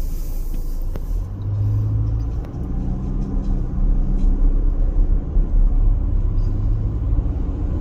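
Road noise heard inside a moving car's cabin: a steady low rumble of engine and tyres in traffic, with a low engine hum that swells and fades a few times.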